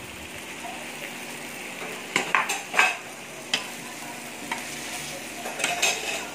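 Marinated meat sizzling steadily on an electric samgyupsal grill plate, with a few sharp metal clicks and taps from the cooking utensils, bunched about two to three seconds in and again near the end.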